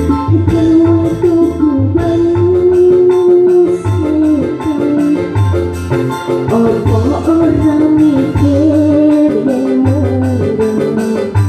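Dangdut song playing loudly: a wavering melody line over a pulsing bass and a steady drum beat.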